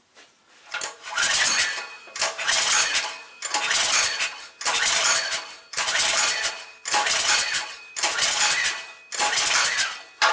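WEN 4050 generator's engine cranked over by its recoil starter rope, eight pulls about a second apart, turning over without firing. This is a compression test with WD-40 in the cylinder to check for worn rings; the gauge tops out at 60 psi, so the rings are not bad.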